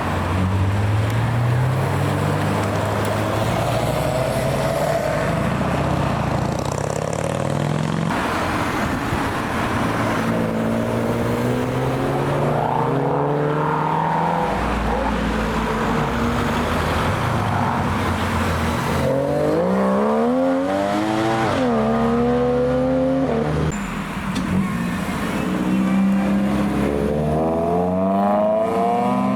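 Several cars accelerating away one after another, their engines rising in pitch through the gears with drops at each gear change. The loudest pull comes about twenty seconds in, with two upshifts close together.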